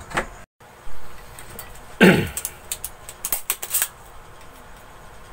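Sharp clicks and taps of hand tools working on an amplifier circuit board during desoldering. About two seconds in there is one loud, short sound falling steeply in pitch, followed by a quick run of clicks.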